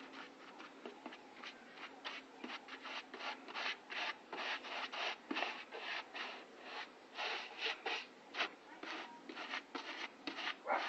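Rubbing strokes by hand over a vehicle body panel, quick and uneven, about three a second, getting louder a few seconds in.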